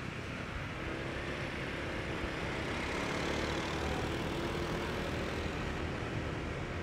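Motorbike riding along with a steady engine hum under wind and road noise, slightly louder around the middle.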